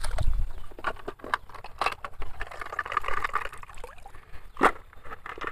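Plastic toys being loaded into a toy dump truck: a string of irregular light clicks and knocks, with one louder knock about four and a half seconds in.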